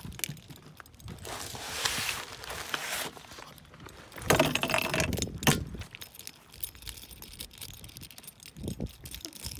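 Bunch of keys jangling in two bursts while the holder walks, the second with low thumps and handling knocks.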